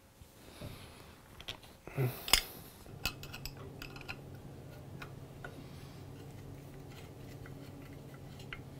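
Small metal clicks, taps and scrapes of a screwdriver and a pointed tool working against the parts of a cast-iron hand plane as it is put back together, with a couple of louder clinks about two seconds in. A low steady hum comes in about three seconds in.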